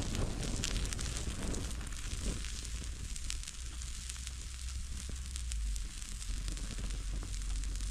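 Fire burning pressed sawdust blocks, with a steady hiss and many small, quick crackles and pops.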